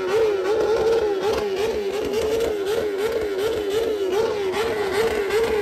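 Kawasaki Ninja superbike engine revved and held at high revs, its pitch bouncing up and down about twice a second.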